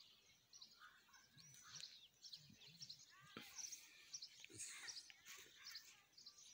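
Faint chirps and calls of several small birds, short high notes coming often and overlapping.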